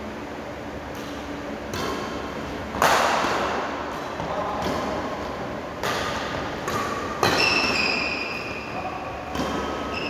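Badminton rackets striking a shuttlecock in a doubles rally: about eight sharp hits, roughly one a second, the loudest about three seconds in, each echoing briefly in the hall.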